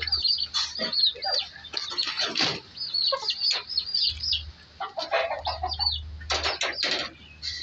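Chicks peeping several times a second, with clucks from hens, over the crackle of lettuce leaves being handled against a wire cage.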